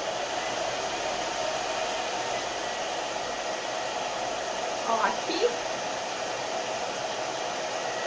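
Irresistible Me Onyx Professional infrared hair dryer running steadily: an even rushing whir of air from its fan with a steady hum in it.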